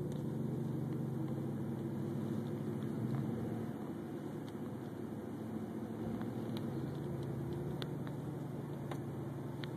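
Car's engine and road noise heard inside the cabin while driving on a wet road: a steady low drone that eases off for a few seconds midway, then returns.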